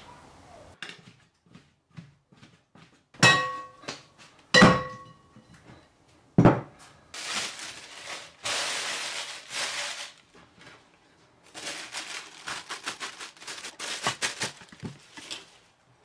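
A glass mixing bowl clinks twice with a ringing tone as it is handled and set down, then a dull knock, followed by plastic sheeting crinkling and rustling in long stretches as it is spread over the bowl to cover the dough.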